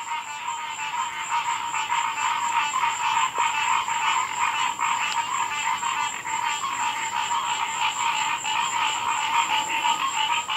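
A dense chorus of frogs calling at night, a fast pulsing din that never lets up, with a thin steady high-pitched whine running under it.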